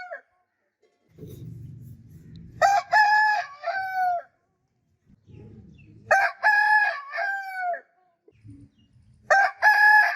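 Rooster crowing three times, about three and a half seconds apart, each crow a loud cock-a-doodle-doo whose last note falls in pitch. A low rustling noise fills the gaps between crows.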